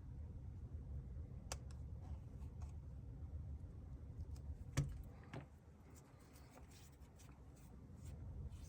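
Faint scattered clicks and taps of small repair tools handling phone parts, the sharpest a little before five seconds in, over a low steady hum that fades out about halfway through.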